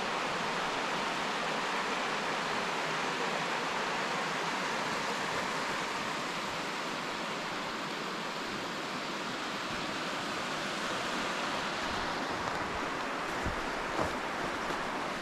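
Steady rushing of a snowmelt mountain stream below the path, with a couple of soft knocks near the end.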